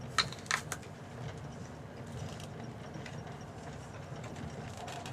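Two crisp crunches as teeth bite into an apple, about a quarter and half a second in, over the steady low rumble of a moving train carriage.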